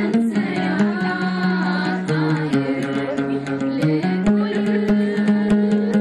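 An oud played with quick, repeated plucked strokes while a group of voices sings a melody along with it, the held notes moving to a new pitch every second or so.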